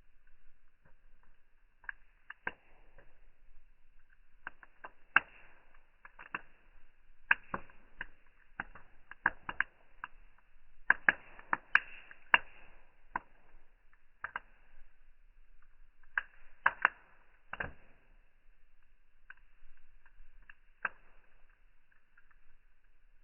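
Wood fire crackling, its sound slowed down with the slow-motion picture: irregular sharp pops and snaps, thickest and loudest around the middle.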